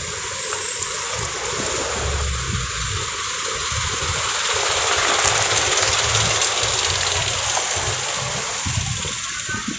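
Steady rushing noise of wind on the microphone and city traffic while moving along a street, with a low, uneven rumble underneath.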